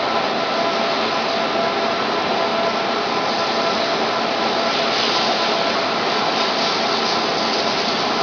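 Steady factory machinery noise: an even hiss with a few faint steady hum tones in it, getting slightly brighter and hissier from about five seconds in.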